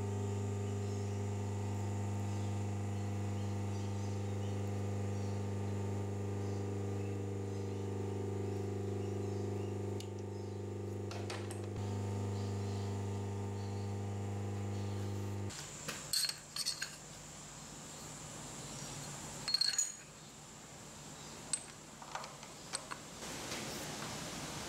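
Milling machine running with a steady hum, which cuts off abruptly about two-thirds of the way through. Then a scatter of sharp metallic clinks, some ringing briefly, as metal parts and parallels are set into the machine vise.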